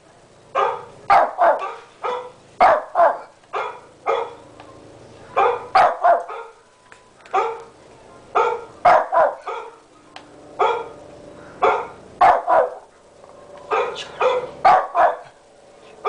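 Shih tzu barking repeatedly in sharp barks, mostly in quick runs of two or three, with short pauses between runs.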